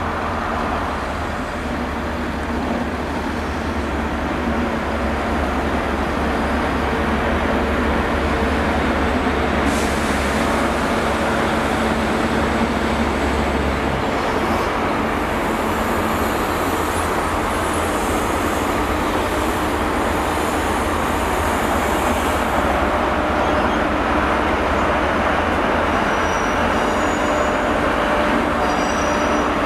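A Great Western Railway Class 43 HST (InterCity 125) rolls past with its diesel power cars running. A low engine drone fades about halfway through as the leading power car moves away, giving way to wheel and rail noise as the coaches pass. Brief high squeals of wheel on rail come near the end as the rear power car goes by.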